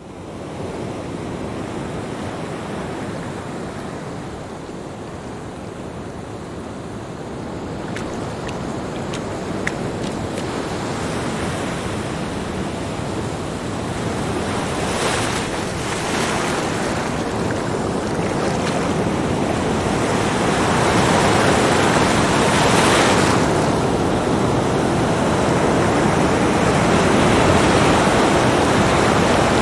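Small ocean waves breaking and washing up a sandy beach: a continuous surf hiss that swells with each breaking wave, growing louder over the second half.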